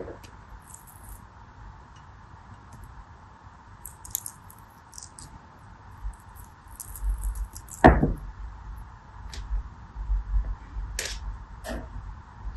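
Fingers sifting and dropping small crushed pieces of clear soap in a ribbed clear dish: light clicks, clinks and crackles. About eight seconds in comes one louder brief sound falling in pitch, with a few faint handling thumps.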